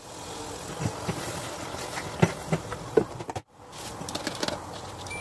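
A spoon scraping and knocking in a plastic tub, a handful of short taps. After a break about three and a half seconds in, light clatter of a plastic sieve against a steel pot.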